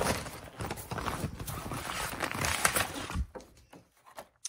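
Clear plastic zippered book pouches being handled and opened: rustling, crinkling plastic for about three seconds, then quieter, with one sharp click near the end.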